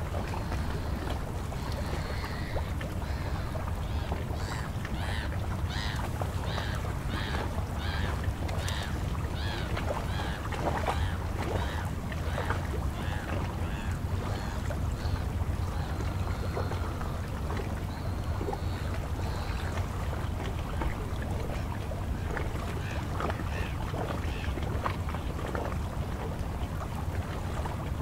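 Choppy, wind-ruffled estuary water lapping at the shore, with a steady low wind rumble on the microphone. In the middle a run of short high notes repeats about twice a second.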